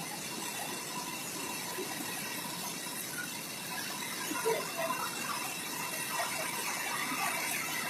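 Steady rushing noise of the Malibo Anai waterfall running in flood, with faint, scattered short squeaky sounds over it.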